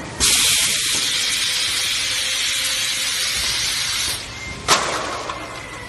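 BG60A-6C square aluminium cup sealing machine's pneumatics letting out compressed air: a loud hiss that starts suddenly, holds steady for about four seconds and cuts off. About half a second later the mechanism gives a single sharp clack.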